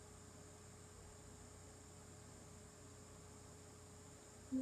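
Steady low electrical hum with faint hiss: near-silent room tone. Right at the end, a short falling two-note tone, the Amazon Echo's sound as it stops listening.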